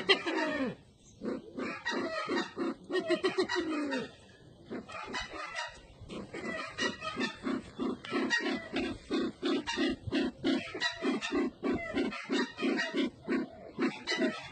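Low calls of the Sumatran ground bird known as burung merah mata (sempidan). A few slurred falling notes come first, then after a short lull a fast even series of short clucking notes, about four to five a second.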